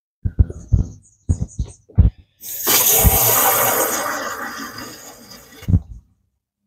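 Water from a garden-hose spray nozzle being forced into the engine's coolant hose fitting to flush out the cooling passages. A few short sharp bursts come first, then a steady rush of water for about three seconds that fades and ends with a thump.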